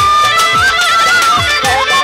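Instrumental interlude in Bengali folk music: a violin plays a high, ornamented melody over hand-drum strokes whose deep notes slide down in pitch.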